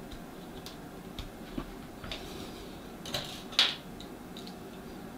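Plastic Gunpla model-kit parts being handled: small clicks and rubbing as pieces are pried off and fitted by hand, with a couple of sharper clicks a little past three seconds in.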